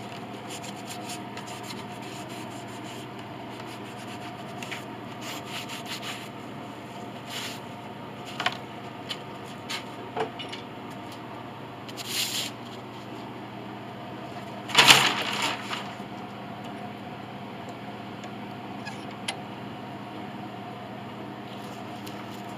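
A small wooden block is pressed onto a glued joint and a steel screw clamp is set over it. This gives scattered rubs, scrapes and light knocks of wood and metal, with one louder clunk about fifteen seconds in. A steady low hum runs underneath.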